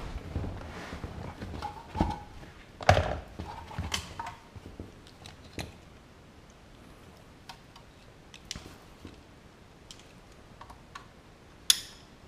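Hands handling a car radio head unit and its wiring loom: a run of clicks, knocks and rustles, busiest in the first five seconds, then scattered clicks, with one sharp click near the end.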